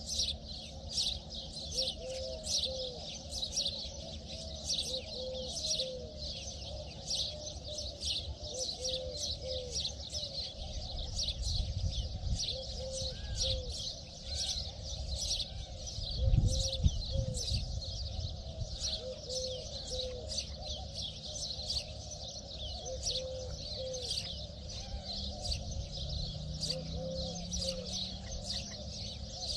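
Many small birds chirping constantly in a high, busy chatter, with a short low call repeated in groups of two or three every couple of seconds. A low bump about halfway through is the loudest moment.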